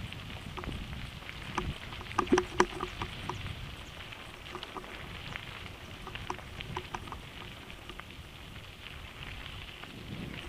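Mountain bike rolling fast down a gravel road: tyres crunching over the gravel, with the bike rattling and clicking over the bumps and a cluster of louder knocks a couple of seconds in. Wind rumbles on the microphone throughout.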